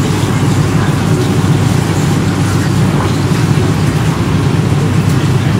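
Loud, steady low rumble with no breaks.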